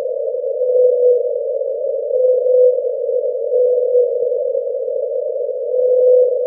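Hydrophone recording of the 52-hertz whale's call, sped up ten times: short hums at one steady pitch, about one every second and a half, over a continuous band of sea noise.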